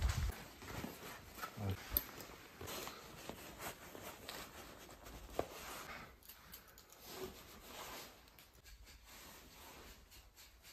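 Faint rustling of clothing with scattered light clicks and taps, as a jacket is handled and put on.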